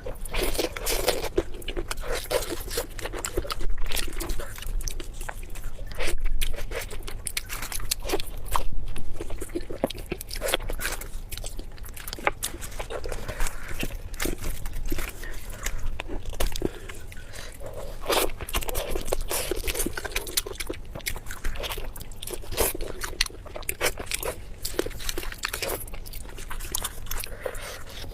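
Close-miked eating: repeated biting and chewing of food, with many quick crunches and clicks.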